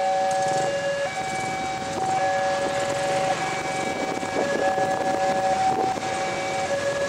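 Diesel locomotive horn sounding in long held notes, two pitches alternating and sometimes overlapping, as the train approaches, over a steady rumble of the train.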